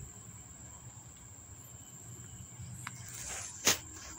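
Faint steady high-pitched buzz of insects in the background, with a brief rustle and a sharp click about three and a half seconds in.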